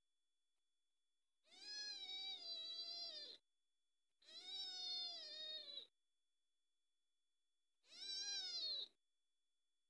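Young kitten meowing three times, long drawn-out meows that each rise and then fall in pitch, the last one shorter.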